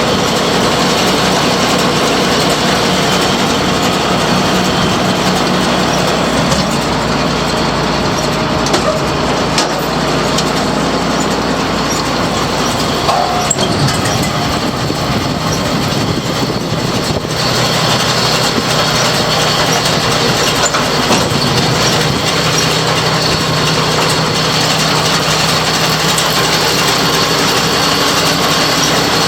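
John Deere 569 round baler running on a tractor's power take-off, a steady mechanical run with rattling, over the tractor's engine.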